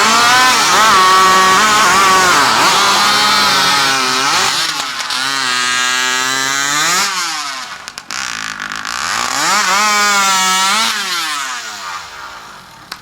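Modified racing chainsaw (hot saw) running at high revs. Its pitch sags and recovers several times as it loads up in cuts through the timber, drops away about two-thirds of the way in, climbs again, then winds down near the end.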